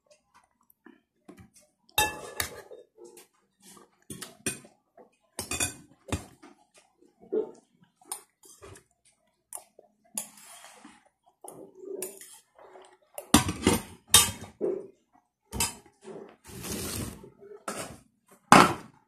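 Metal spoon clinking and scraping on ceramic plates, with plates knocked against each other. The clinks are irregular and sharp, with two longer scrapes, the first about halfway through and the second near the end.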